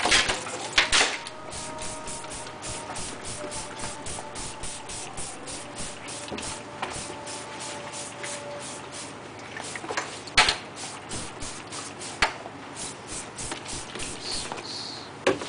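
Hand spray bottle squirted rapidly and repeatedly onto a leather jacket, about three to four short sprays a second, pausing briefly about nine seconds in. A few louder knocks and rustles come from the jacket being handled, near the start and about ten seconds in.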